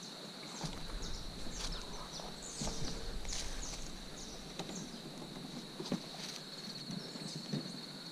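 A steady, high-pitched insect drone, with irregular footsteps and rustling through brush that are busiest in the first half. A low rumble runs from about half a second to four seconds in.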